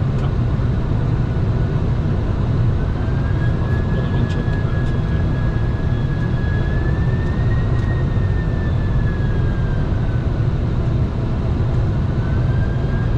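Boeing 747-400ERF freighter on final approach: a steady loud rumble of engines and airflow, with a faint high whine that slowly rises and falls.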